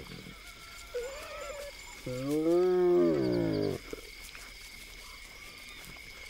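Spotted hyena calling: a short, higher call about a second in, then one long call that rises and then falls in pitch.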